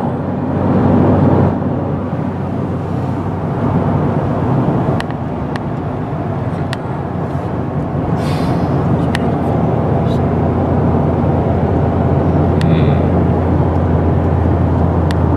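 Car cabin noise: a steady low engine hum under a rumbling hiss, with a few faint ticks.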